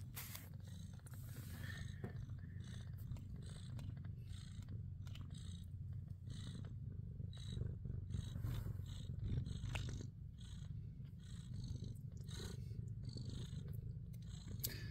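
Abyssinian cats purring steadily while nursing newborn kittens: a continuous low rumble, with faint scattered soft ticks and rustles above it.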